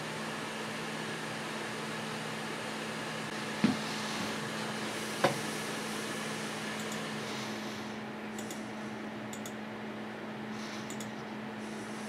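Desktop computer running: a steady fan hum with a constant low tone, and a second, lower tone that drops out about seven seconds in. Two sharp clicks come about three and a half and five seconds in.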